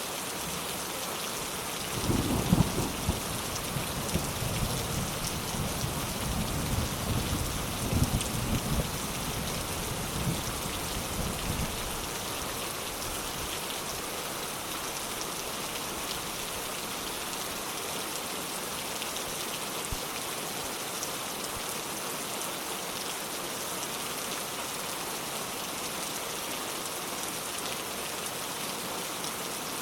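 Steady rain falling, with a roll of thunder rumbling low from about two seconds in until about twelve seconds, loudest near the start and again midway.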